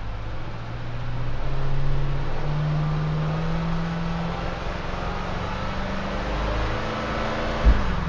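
Warm BMW F90 M5 twin-turbo 4.4-litre V8 revved in the parked car: the engine note steps up twice, holds at the higher revs for a couple of seconds, then settles back toward idle. A quick, sharp throttle blip comes near the end.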